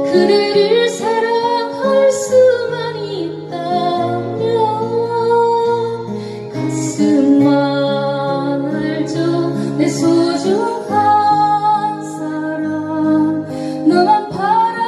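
Woman singing a slow ballad into a microphone, accompanied by two acoustic guitars.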